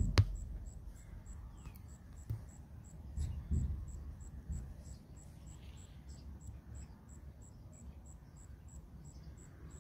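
Faint, high-pitched chirping that repeats evenly about three times a second, over low handling rumble, with one sharp click at the very start and a few soft knocks a few seconds in.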